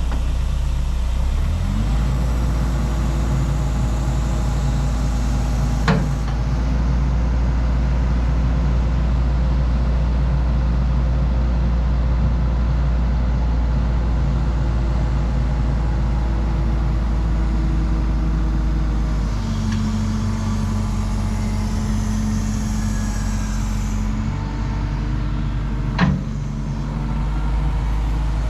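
Liebherr 914 Litronic excavator's diesel engine running steadily, its note shifting a couple of seconds in and again about two-thirds of the way through as the load changes. Two sharp clicks, about six seconds in and near the end.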